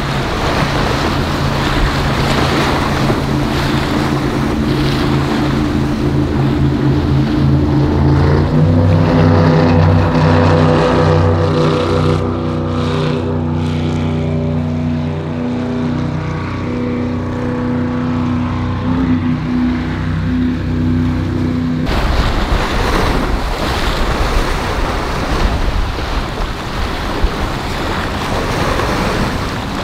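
Motorboat engines running over wind and waves, stepping up in pitch as the throttle opens about eight seconds in. About twenty-two seconds in the engine sound cuts off abruptly, leaving wind on the microphone and surf.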